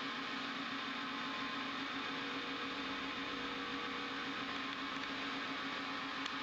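Steady hum and whir of a powered-up HH Roberts 14x40 CNC lathe standing idle, with a faint click near the end.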